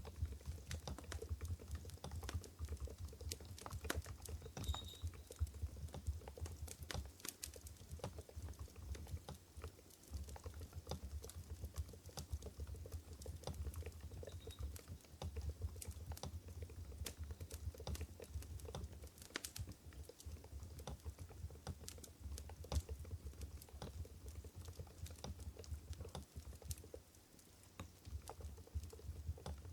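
Continuous typing on an Mstone Groove GV10 keyboard with silent Coral 45 g switches: a dense run of soft key clicks over a low steady hum.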